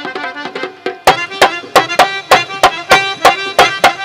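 Instrumental interlude of a Bhandari (Maijbhandari Sufi devotional) song, played live: a harmonium melody, with the tabla and dholak coming in about a second in with a steady, driving beat of about three strokes a second.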